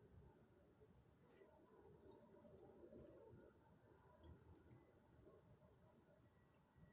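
Faint night-time insect trill, a cricket-like steady high pulsing tone without a break, over a faint low rumble.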